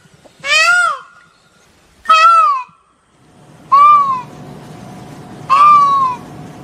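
Peacock (Indian peafowl) calling: four loud, short calls about one and a half seconds apart, each rising then falling in pitch, like a loud meow. The last two come over a steady low background noise with a faint hum.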